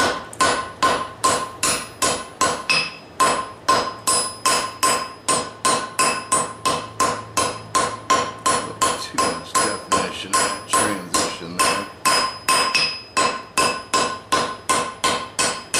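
Blacksmith's hand hammer striking red-hot rebar on an anvil in a steady rhythm, about three blows a second, each blow ringing briefly off the anvil, while the bar is drawn and cleaned up into shape.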